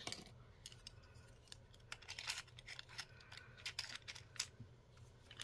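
Faint, irregular light clicks and taps of small plastic miniature pieces being handled and set onto the shelves of a plastic display case.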